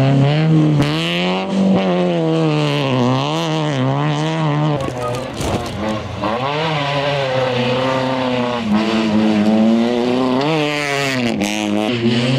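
Rally cars' engines revving hard on a gravel stage, the pitch climbing and dropping again several times with the gear changes and lifts, with a hiss of loose gravel under the tyres.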